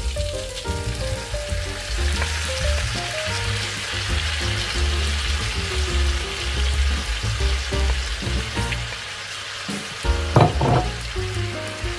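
Beef slices and their sauce sizzling in a hot frying pan on top of stir-fried vegetables, a steady frying hiss. Two short knocks near the end.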